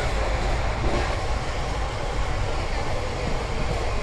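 Steady rumble of a moving passenger train, heard from inside the coach: the wheels running on the rails.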